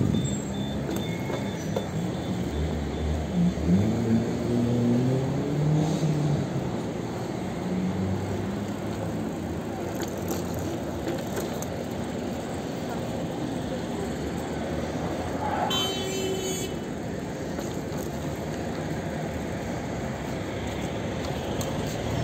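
Street traffic noise, with a vehicle engine climbing in pitch a few seconds in and a short, high ringing tone about two-thirds of the way through.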